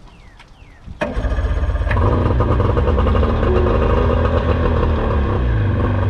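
50 hp Johnson outboard motor starting up about a second in after its fuel bulb has been primed, then running steadily: the first start after months of sitting, on a new battery.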